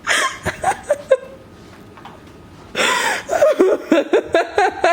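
A person laughing, with a run of short repeated laughs, about four a second, starting about three seconds in.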